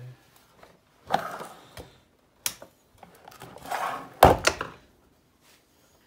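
Plastic casing of a small Hoover canister vacuum cleaner being handled and turned over on a workbench: scraping and knocking, a sharp click about two and a half seconds in, and a loud thump a little after four seconds as it is set down upright.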